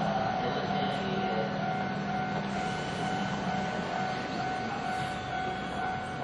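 Japanese level crossing warning bell ringing steadily over the running noise of a Keihan electric train.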